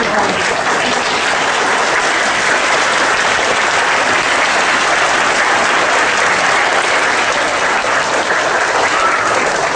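Applause from a roomful of schoolchildren: many hands clapping together in a steady, unbroken patter.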